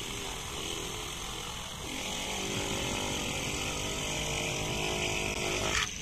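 Homemade electric drill built from a motorcycle self-starter motor, running steadily as its bit bores into a red clay brick; it grows a little louder about two seconds in and stops just before the end.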